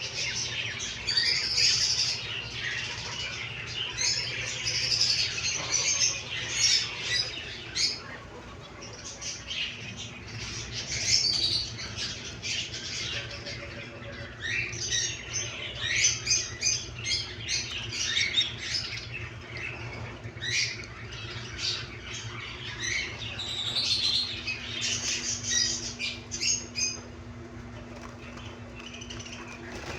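A crowd of caged birds calling at once, with constant chirps and squawks and bursts of wing flapping. A steady low hum runs underneath.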